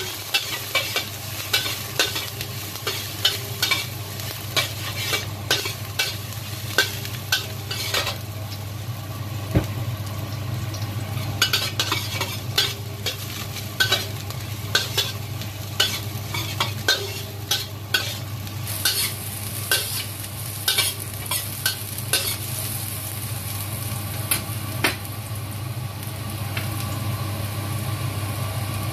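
A metal spatula scraping and clinking against a stainless-steel wok, often about once a second, as strips of ginger fry in a little oil with a light sizzle that turns brighter about two-thirds of the way in. A steady low hum runs underneath.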